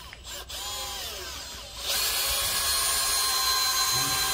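Makita DHP486 18 V brushless cordless drill/driver starts about two seconds in and runs under load with a steady, even whine as it drives a 20 cm Torx T40 screw into a pine beam.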